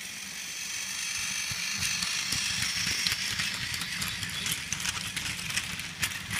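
Battery-powered motorized toy Thomas the Tank Engine running on plastic track, pulling a line of seven cars. The steady motor and wheel noise grows louder as the train passes close, with a clicking rattle from the cars that builds up near the end.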